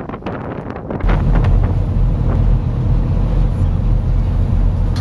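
Wind buffeting the microphone on the open deck of a boat: a steady low rumble that cuts in suddenly about a second in.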